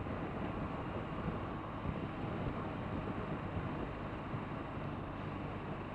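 Steady rush of wind and road noise with the low, even drone of a 2017 BMW R1200RT's flat-twin boxer engine, the motorcycle cruising at a constant speed.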